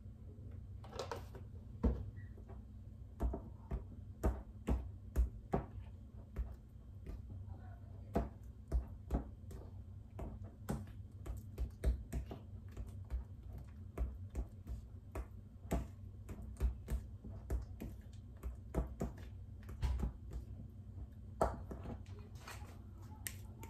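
A spoon clicking and scraping against a glass mixing bowl as white frosting is stirred by hand, in irregular sharp knocks one or two a second, over a steady low hum.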